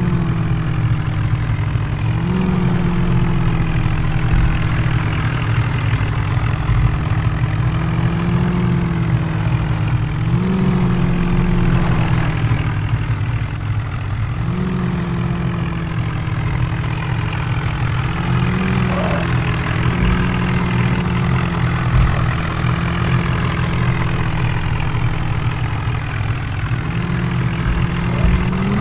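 Heavy diesel engine running steadily, its speed rising a little and settling back every few seconds, with a sharper rev up and down near the end.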